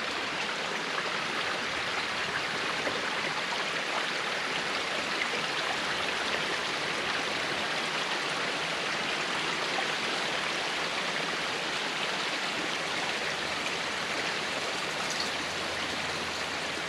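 Small forest creek running, a steady even rush of flowing water.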